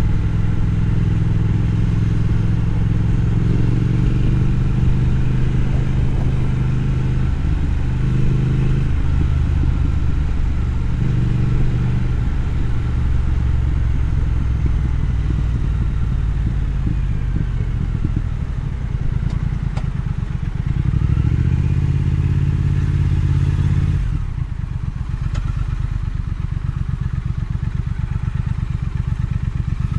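Triumph Thruxton FE's 1200 cc parallel-twin engine running under way, its pitch stepping up and down with throttle and gear changes. It drops to a lower, steadier beat with about six seconds left.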